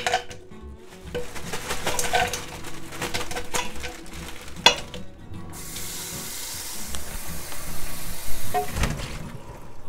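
Frozen shrimp shaken from a plastic bag clatter into a stainless steel pot, with sharp clicks and bag rustling. From about five and a half seconds in, a tap runs a steady stream of water into the pot, stopping shortly before the end.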